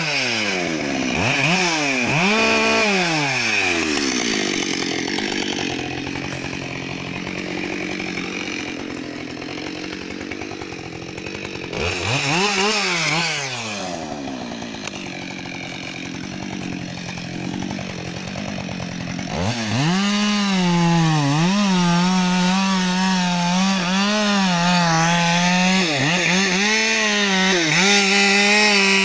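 Husqvarna 572XP two-stroke chainsaw coming off throttle and idling, with a few short blips of the throttle. About two-thirds of the way through it goes to full throttle under load, sawing into a log, the engine pitch dipping and recovering as the chain bites.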